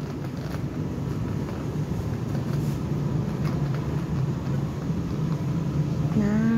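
Steady low hum and rumble of supermarket background noise in the produce aisle, with a brief voice near the end.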